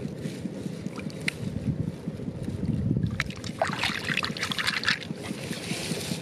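Hands splashing and sloshing in shallow water while rinsing a handful of small shells, the splashing loudest from about three to five seconds in, over a low steady rumble.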